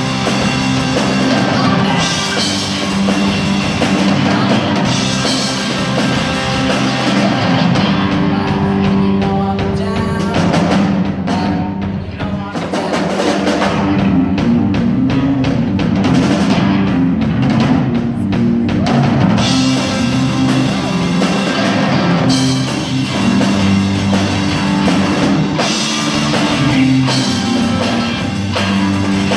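Live rock band playing: two electric guitars through small amps over a drum kit. For about ten seconds in the middle the cymbals drop out, then come back in.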